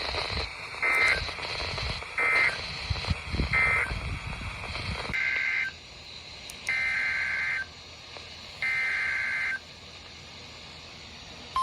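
Emergency Alert System digital data tones over a weather-radio feed. Three short buzzing two-tone bursts end the previous warning, then three longer bursts with pauses between announce the next one. Radio static and crackle fill the gaps in the first part.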